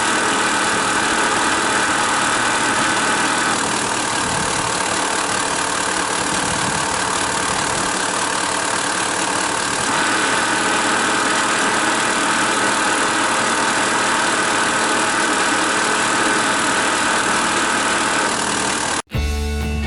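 1998 Mitsubishi Pajero Long's engine running steadily at idle with an abnormal mechanical noise from the engine bay, which the owner traces to a failing air-conditioning compressor (its main-shaft bearing and internal vanes, which turn heavily and not smoothly). It cuts off suddenly just before the end.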